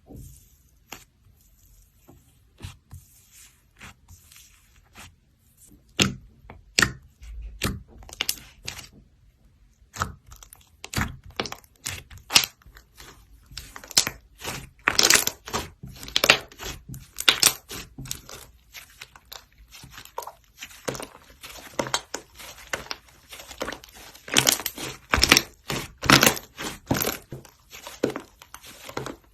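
Slime being squeezed, poked and stretched by hand, giving sharp sticky clicks, pops and crackles. These are sparse at first and grow dense and louder from about ten seconds in.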